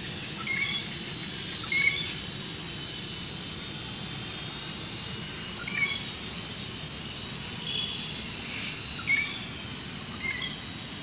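Birds chirping: short, sharp single chirps every second or few seconds over a steady outdoor background hum.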